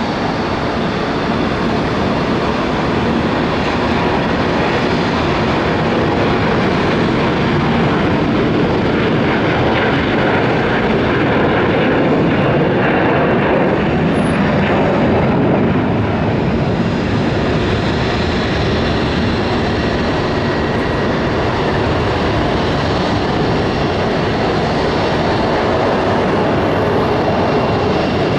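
Embraer 175 regional jet taking off, its twin GE CF34 turbofans at take-off power: a loud, steady jet roar that swells slightly toward the middle.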